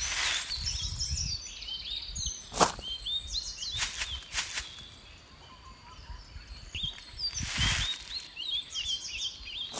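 A miniature metal shovel scraping and digging into sand in a few separate strokes, the sharpest about two and a half seconds in. Birds chirp in short rising calls throughout.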